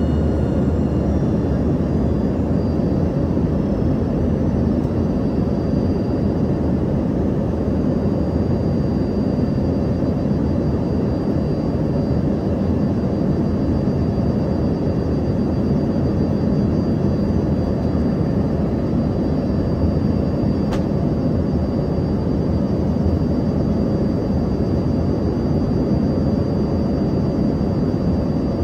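Cabin noise inside an Embraer ERJ-145 regional jet under way: the steady roar of its rear-mounted Rolls-Royce AE 3007 turbofans and airflow, with a thin high whine over it. A single faint click comes about two-thirds of the way through.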